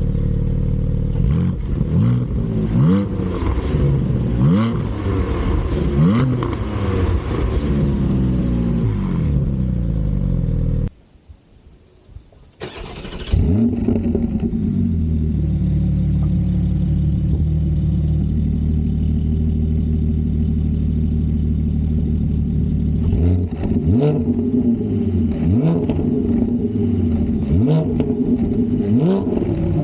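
Porsche 718 Spyder's 4.0-litre flat-six exhaust, revved in a series of throttle blips over a steady idle. After a short break the engine starts with a loud flare, settles to a steady idle, and is blipped again near the end.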